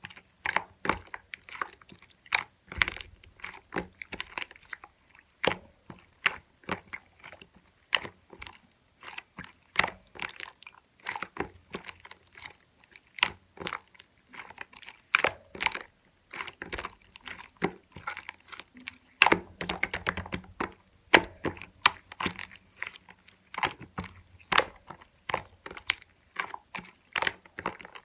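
Slime being pressed, stretched and squished by hand, giving an irregular stream of crisp clicks, pops and crackles, several a second.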